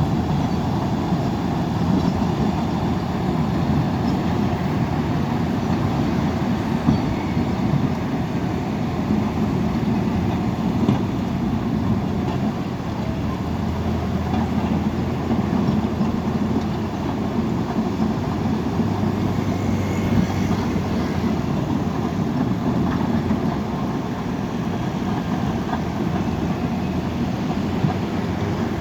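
Heavy diesel earthmoving machinery running steadily, a continuous low engine drone with a few brief knocks.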